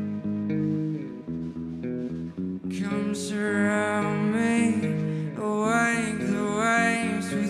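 Live indie-pop band playing: picked guitar notes, then a male voice starts singing about three seconds in, its sung notes wavering over the band.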